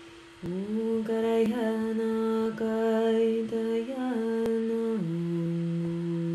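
Woman's voice humming long held notes that step in pitch a few times, over the steady ringing tone of a brass singing bowl. The humming comes in about half a second in and settles onto a lower held note about five seconds in.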